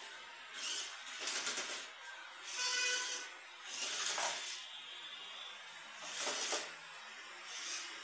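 Small electric RC rock crawler's motor and gearbox whining in short throttle bursts, about six in a row with brief pauses between.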